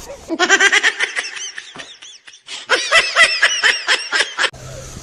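High-pitched giggling laughter in two bouts, with a short pause about two seconds in.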